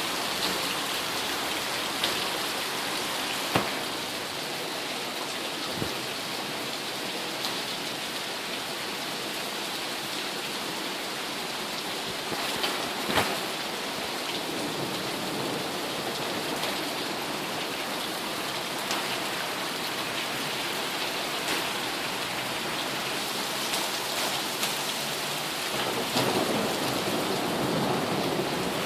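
Steady heavy rain of a thunderstorm falling on a surface, with scattered sharp taps. Thunder starts to rumble low near the end.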